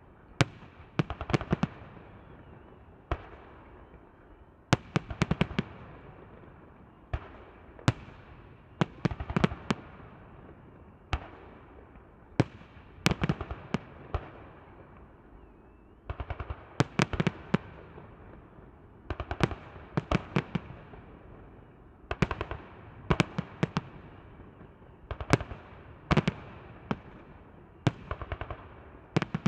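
Fireworks display: aerial shells bursting in clusters of sharp bangs every second or two, each cluster followed by a fading rumble and crackle.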